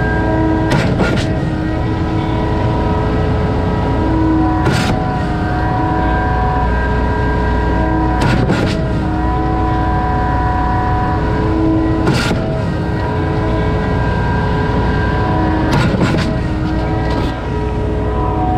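Concrete pump truck running steadily while its swing valve shifts over every three and a half to four seconds with a loud clank. Every other shift comes as a single clean clank and the rest as a doubled clank with a brief hitch between the two. That hitch is a delay in the valve's return stroke that should not be there: a faulty valve on the pump.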